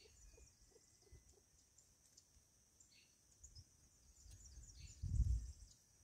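Small birds chirping faintly over a steady high insect hum, with a low rumble that swells briefly about five seconds in.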